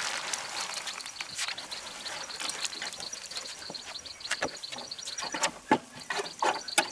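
Burger buns sizzling as they are laid cut side down in a hot, greasy stainless steel pan over charcoal, with clicks and taps of the tongs against the pan. The sizzle is strongest at the start and dies down, and the tapping picks up near the end.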